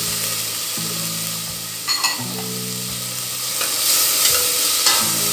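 Diced tomato, onion and garlic sizzling in olive oil in a stainless-steel pot while a metal spoon stirs them, scraping and clicking against the pot a few times.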